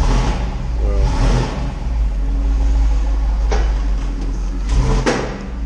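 A motor vehicle engine running with a steady low rumble. Two sharp knocks sound about three and a half and five seconds in.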